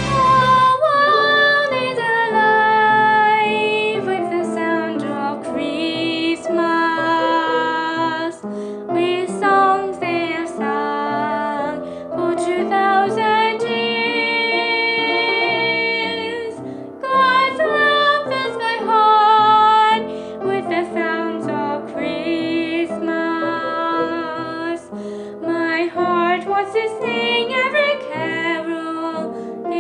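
A woman singing a melody with long held notes over instrumental accompaniment.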